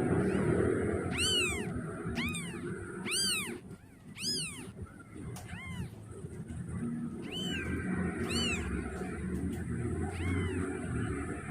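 A young kitten mewing to call its mother: about eight short, high-pitched mews, each rising then falling in pitch, coming roughly once a second with a few longer gaps, over a steady low background hum.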